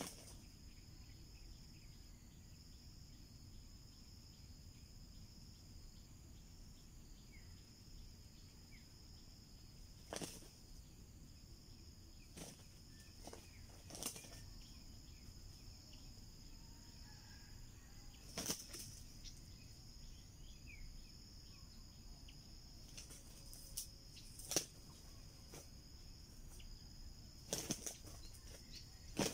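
A steady high insect drone, with a few short, sharp flutters and thumps scattered through it from two red junglefowl roosters scuffling and flapping their wings.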